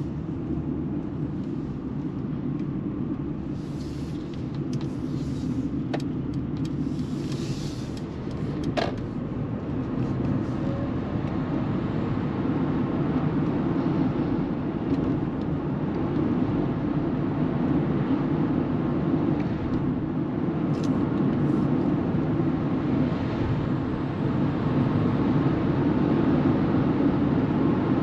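Cabin noise inside a Mercedes EQB 350 4MATIC electric SUV on the move: steady tyre and road rumble with wind noise and no engine sound, slowly growing louder as speed builds. There are two sharp clicks at about 6 and 9 seconds.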